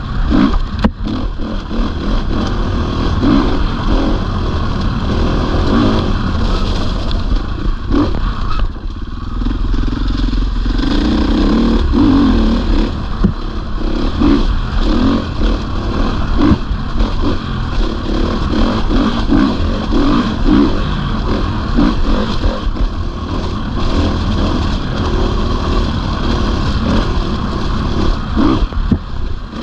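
A 450 cc four-stroke single-cylinder enduro motorcycle being ridden off-road, its engine revving up and down as the throttle opens and closes, with short clattering knocks over rough ground. The engine drops off briefly about nine seconds in, then picks up again.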